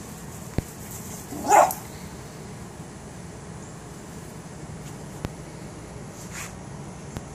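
A small dog gives one short bark about one and a half seconds in, the loudest sound here, followed by a fainter, higher yelp near the end.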